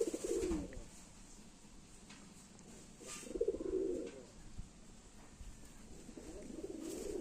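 Domestic fancy pigeons cooing in a loft: three short low cooing phrases, one near the start, one about three seconds in and one near the end.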